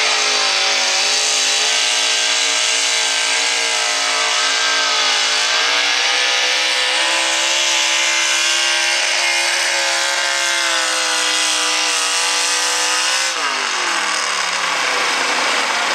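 V8 engine of a hot rod pulling tractor at full throttle, dragging the weight-transfer sled down the track on open stacks; the revs sag a little about five seconds in as the load builds. About thirteen seconds in the throttle is chopped and the revs fall away quickly as the pull ends.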